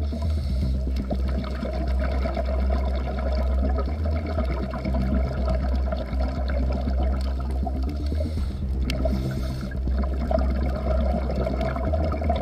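Underwater ambience picked up by a dive camera: a steady rush of water noise with fine crackling running through it.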